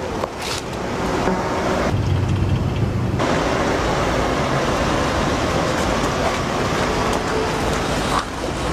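Steady street traffic noise: a car engine and tyres rolling slowly along the road.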